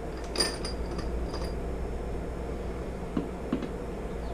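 Metal hand tools clicking and clinking while the engine's nuts are torqued. A sharp metallic click with a brief ring comes about half a second in, lighter clinks follow, and two dull knocks come a little after three seconds.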